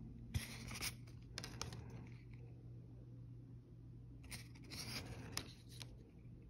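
Yu-Gi-Oh trading cards sliding against one another as a hand flips through a stack: two short spells of faint scraping rustle, one near the start and one about four seconds in.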